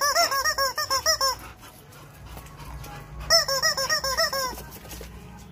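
Rubber squeaky chicken toy squeaking in quick repeated squeezes, about five squeaks a second, in two runs with a pause of about two seconds between them.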